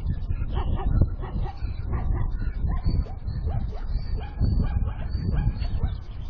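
An animal making short, repeated whimpering and yipping cries, a few each second, over a low rumble.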